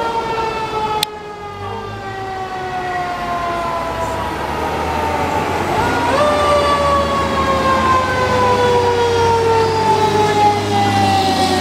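Fire engine siren wailing. Its pitch jumps up sharply, then falls slowly over several seconds, and jumps up again about six seconds in before falling slowly once more, over a low engine rumble.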